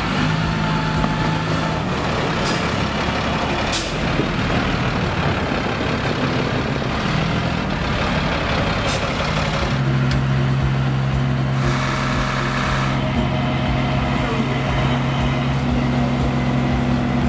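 Diesel engine of a Peterbilt flatbed truck running. It has a steady hum that grows stronger about ten seconds in, with a few brief sharp sounds.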